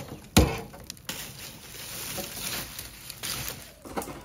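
Cooking-handling sounds: a sharp knock about half a second in, then light clattering and rustling with a few small clicks.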